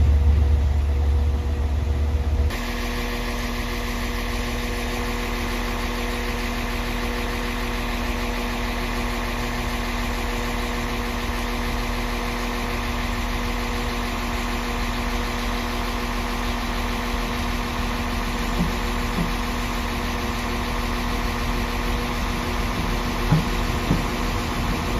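Low diesel rumble of a Class 67 locomotive approaching. After a couple of seconds this gives way to the steady idle hum of a Transport for Wales Class 197 diesel multiple unit standing at the platform, with a few faint clicks near the end as a second unit draws in.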